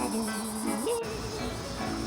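Insects chirping in a fast, pulsing high trill over a tune. About a second in, both cut off suddenly, leaving a low rumble.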